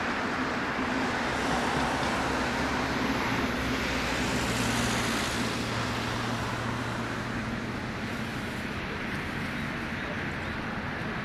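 Boeing 777-300ER's twin GE90-115B turbofan engines at climb thrust as the airliner climbs away: a steady broad jet rumble with a low hum, loudest about four to five seconds in and then slowly fading.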